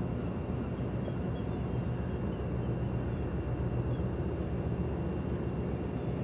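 Steady low drone of the cruise ship Azamara Pursuit's engines as it sails past.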